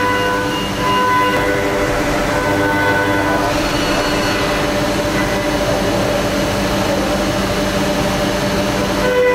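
5-axis CNC milling machine cutting aluminium: steady pitched whine and hum from the spindle and cutter, its tones dropping in and out as the cut changes. About three and a half seconds in, a rushing hiss of coolant spray and chips takes over, and the tones come back strongly near the end.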